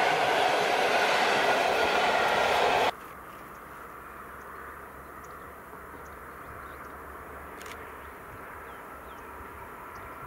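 Intercity passenger coaches rolling past on the rails, a loud steady rumble and rattle of wheels that cuts off abruptly about three seconds in. After that a much quieter open-air background remains: a faint low rumble with a few faint bird chirps.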